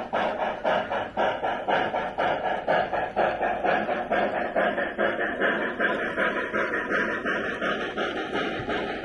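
Sound-fitted model steam locomotive chuffing at a steady beat of about three chuffs a second.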